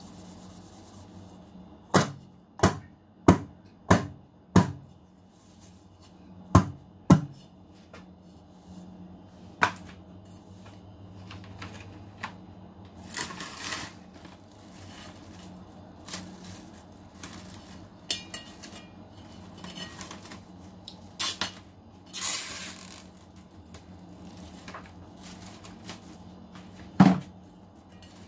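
Seven sharp knocks of a metal cake pan against the counter in the first seven seconds. Then cling film is pulled from its roll and crinkled over the pan in a few short bursts, with one more knock near the end.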